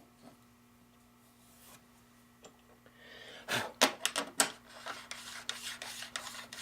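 Faint ticks at first, then from about halfway a run of scraping and rasping strokes as a bit is worked into the jig's material to deepen the screw holes so the screws sit below the track.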